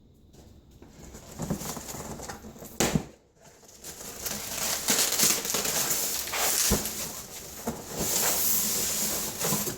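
Packaging being handled while an airsoft rifle is unboxed: a sharp knock about three seconds in, then sustained rustling and crinkling of wrapping from about four seconds on.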